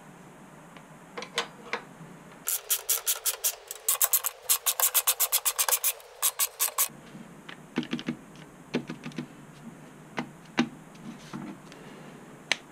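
A socket ratchet clicking in several quick runs, about six clicks a second, from about two and a half seconds in to about seven seconds in; scattered single clicks and knocks of tool handling before and after.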